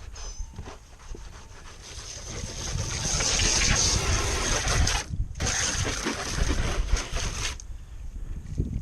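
A spray hissing steadily for about five seconds, with one short break about halfway through, over low wind rumble on the microphone.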